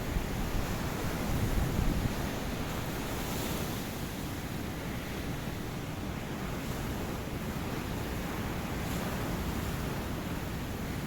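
Ocean surf: waves breaking and washing ashore as a steady rushing noise, with a louder, rumbling wave in the first couple of seconds before it settles into an even wash.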